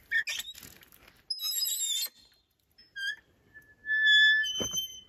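Hand-operated water pump being worked by its lever handle, squeaking as it is pumped: a high rasp, a short squeak, then a longer steady squeal about four seconds in with a clunk at the end of a stroke. No water is flowing yet.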